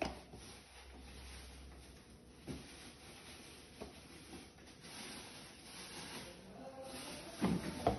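A plastic spoon scraping and tapping against a plastic container while thick melted palm sugar is spooned into a glass: quiet scraping with a few light taps, and some louder knocks near the end.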